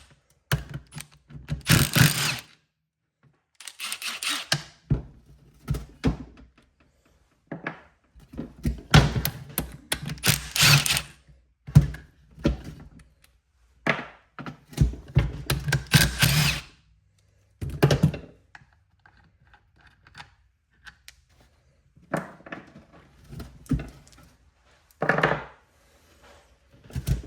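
A hand ratchet with a 1/2-inch socket clicking in repeated bursts as bolts are backed out of a Polaris ATV front differential. Metal tools and parts knock down between bursts.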